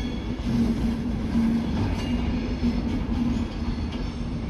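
Avanti West Coast Class 390 Pendolino electric train running away over the station pointwork: a steady low rumble with a recurring hum, and a brief faint high wheel squeal about two seconds in.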